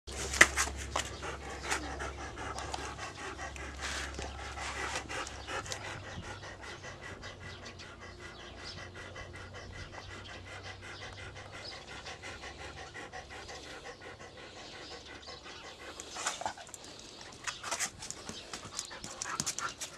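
A Doberman panting in a steady rhythm, with a few sharp knocks near the start and again near the end.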